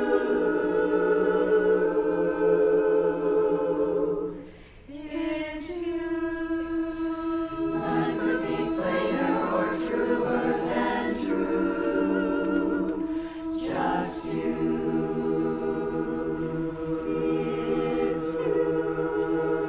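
Women's barbershop chorus singing a cappella in four-part harmony, holding sustained chords, with a short break for breath about four and a half seconds in.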